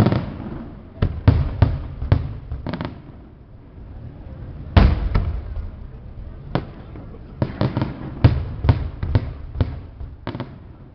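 Fireworks exploding overhead: a dense, irregular series of sharp, loud bangs, several in quick clusters, each trailing a short echo, with a brief lull about three to four seconds in.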